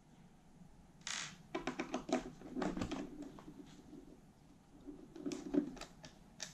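Screwdriver turning screws in the metal plates on the wooden base of a cassette deck: bursts of small clicks and scrapes, starting about a second in and again near the end.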